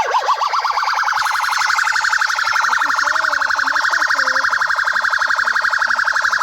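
Electronic siren tone sweeping up and down, quickening in the first second into a fast, steady warble.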